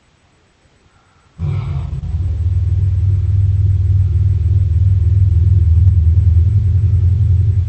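Tyrannosaurus rex film sound effect: after a moment of silence, a deep, low rumbling growl starts about a second and a half in, runs for about six seconds, and cuts off.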